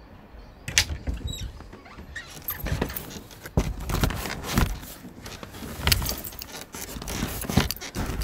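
Rummaging sound effect: an irregular clatter of knocks and clinks as objects are moved about in a search for a bottle. It starts about a second in, over a low steady rumble.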